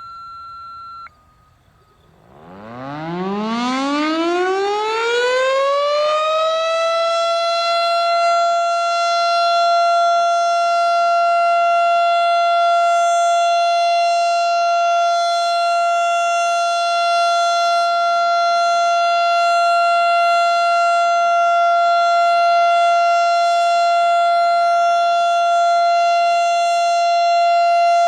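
Federal Signal STH-10 outdoor warning siren starting up, its pitch rising over about five seconds and then holding one steady tone: the steady alert signal of a monthly siren test. A steady electronic beep tone from the dispatch radio cuts off about a second in, before the siren starts.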